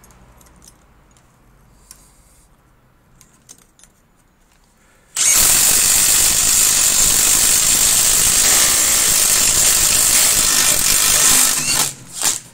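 A Makita DTD172 cordless impact driver and a Milwaukee M18 FIW2F12 cordless impact wrench running together, boring 35 mm spade bits through a wooden board. The loud, continuous sound of the tools starts abruptly about five seconds in and cuts off just before the end.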